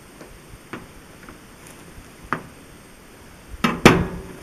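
Large kitchen knife cutting through a block of ballistic gelatin on a sheet-metal appliance top, with a few light knocks, then a loud metallic clatter with a brief ring about three and a half seconds in as the knife is set down on the metal.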